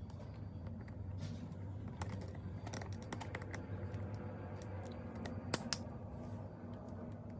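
Small metallic clicks and taps of snap ring pliers working a snap ring out of a pneumatic impact wrench, with two sharper clicks close together about five and a half seconds in. A steady low hum lies under it.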